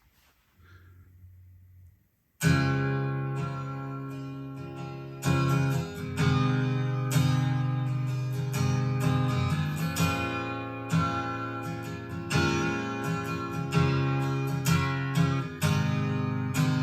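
Acoustic guitar song intro played back from cassette on a Sony TC-FX707R deck, starting suddenly about two seconds in with repeated strummed and plucked chords. A faint low hum comes before it.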